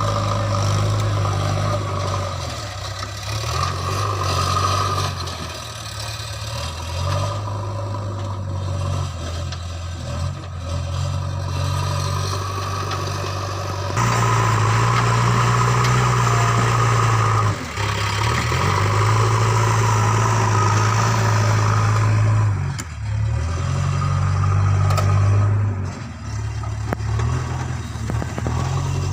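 JCB 3DX backhoe loader's diesel engine running under working load, its low tone stepping up and down as the machine works. The sound changes abruptly about halfway through.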